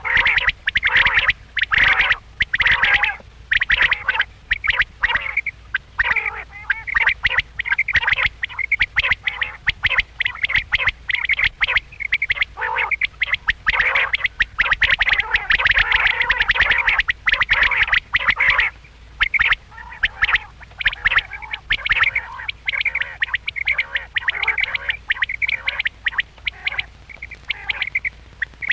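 Quail calling in a dense, continuous run of short, rapid calls.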